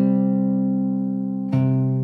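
Background music: guitar notes ringing and slowly fading, with a new note plucked about one and a half seconds in.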